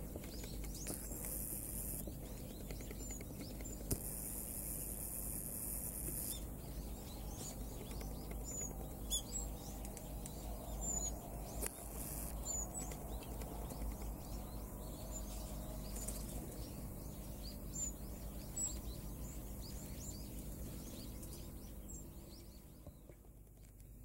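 Wild birds chirping faintly, short high calls scattered through a steady outdoor background of low rumble and hiss, with a few brief bursts of higher hiss in the first half.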